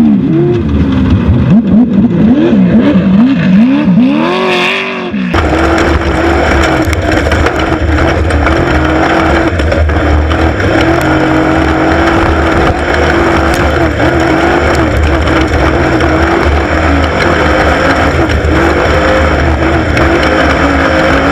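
Off-road race vehicle engines revving up and down in quick swings, then an abrupt switch about five seconds in to a steady, loud engine drone.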